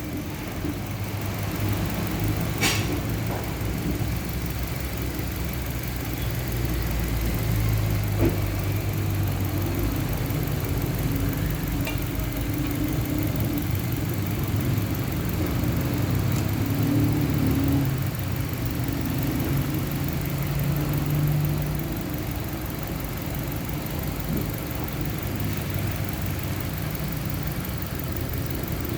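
Suzuki Ciaz car engine running steadily at idle, its pitch drifting slightly, with two sharp clicks about three and eight seconds in.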